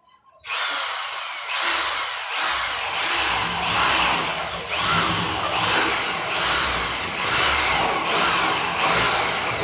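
Power tool motor starting about half a second in and running hard, with a high whine that drops in pitch again and again, about one and a half times a second.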